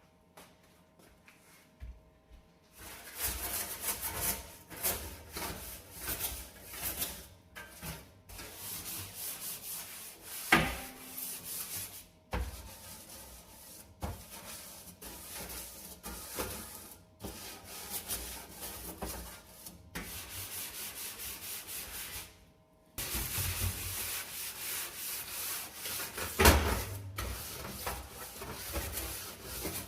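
A brush scrubbing a dirty stove surface in short, scratchy strokes with brief pauses. It starts about three seconds in, and two sharper knocks stand out, one near the middle and one near the end.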